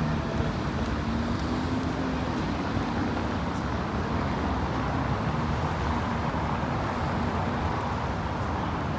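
Steady city traffic noise from a busy street: an even rumble of passing cars with no single event standing out.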